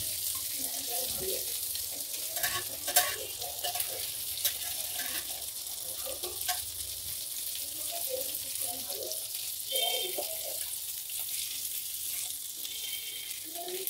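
Small whole fish shallow-frying in hot oil in a nonstick frying pan, with a steady sizzle. A spatula scrapes and taps against the pan a few times as the fish are moved and lifted.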